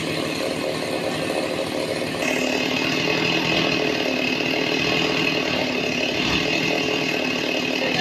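Sawmill saw running and cutting through a large mahogany log. About two seconds in it gets louder and a higher whine comes in, which then holds steady.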